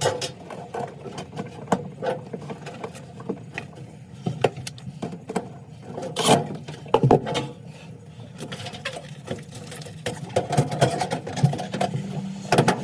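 Irregular clicks, taps and small rattles of hands fitting a replacement freezer thermostat and its wire connectors, over a steady low hum.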